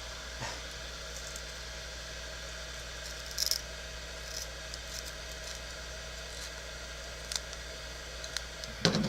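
Quiet handling of a small plastic camera housing and its loose lens glass: a few light clicks and taps, then a sharper knock at the very end, over a steady low hum.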